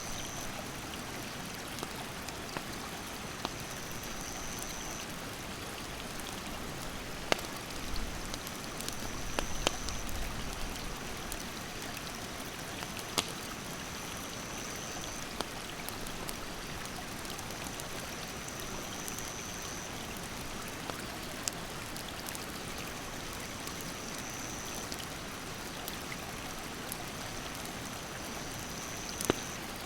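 Stream water rushing steadily, with sharp crackles and pops from a wood campfire scattered through it. A high insect call sounds for a second or two every few seconds.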